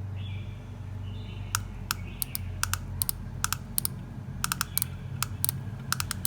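Sharp plastic clicks, many in close pairs, about three or four a second: the trigger of a solder-feed soldering gun being pressed and released to push solder wire to the tip, over a steady low hum.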